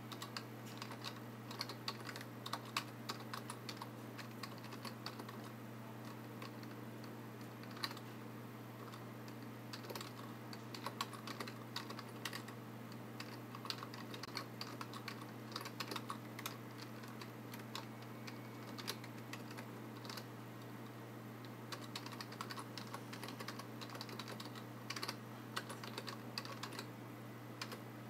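Typing on a computer keyboard: quick runs of key clicks with short pauses between words and phrases, over a steady low hum.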